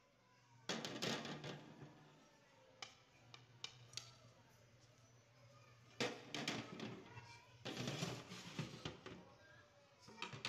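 Cooked rice being scraped and scooped out of a large metal deg onto a plate, heard as bursts of scraping with light clicks against the pot, loudest about a second in and again around six and eight seconds in.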